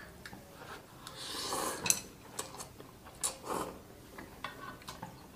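A person slurping curry noodles from a fork: a long slurp about a second in and a shorter one past the middle, with small clicks of the metal fork against the pan.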